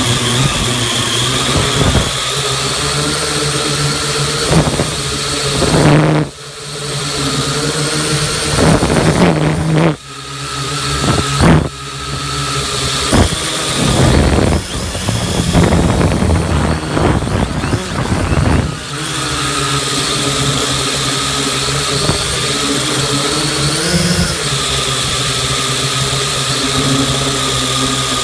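Quadcopter drone's electric motors and propellers whining steadily, picked up at close range by a phone strapped to the drone's legs. Between about six and nineteen seconds in, the steady whine breaks up into uneven rushing noise with sudden dips, then settles back to the steady whine.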